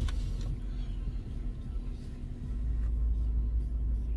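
Car idling, heard from inside the cabin: a steady low rumble with a faint hum, a little stronger in the second half.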